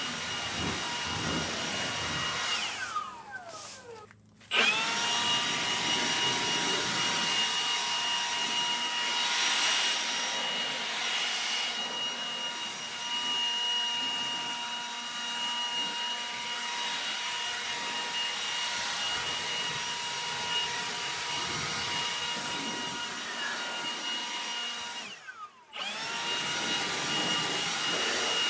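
Vacuum cleaner motor running with a steady high whine. About three seconds in it is switched off and its pitch winds down, and about a second later it comes back on and spins up. Near the end it winds down and restarts once more.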